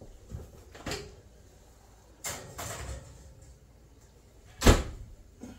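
A gas oven door opening with a click, a cake tin being slid onto the oven shelf with a scraping sound, then the oven door shut with a loud thud near the end.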